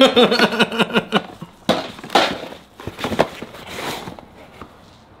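Gloved hands rummaging through a cardboard box of toiletries: plastic bottles and packaging knocking and rustling in scattered clicks, busiest in the middle. A voiced exclamation fills the first second.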